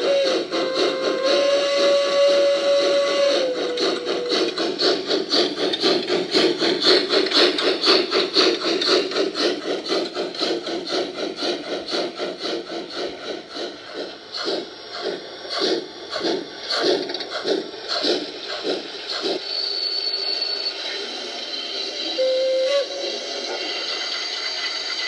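Recorded steam sounds from the ESU LokSound 5L DCC sound decoders, played through the speakers in an LGB 2015D garden-scale model locomotive and its tender: a held steam whistle that dips in pitch, then a rhythmic chuff that slows to about two a second. About twenty seconds in comes a brief high squeal, then a short whistle toot and a steady hiss.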